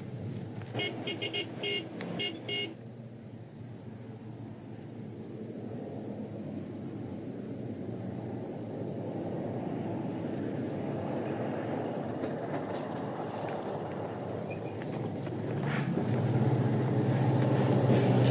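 A vehicle horn gives a quick run of short toots, about eight in two seconds. Then a Mercedes-Benz truck's engine approaches, growing steadily louder until it is close near the end.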